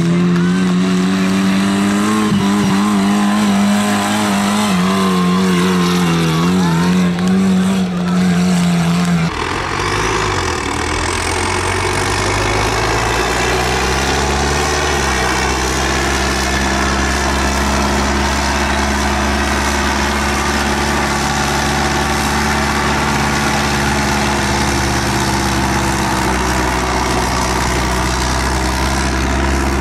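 Engine of a small garden tractor running and revving unevenly, its pitch rising and falling. About nine seconds in it gives way to a large tractor's engine running steadily with a deep drone as it pulls a loaded forestry trailer.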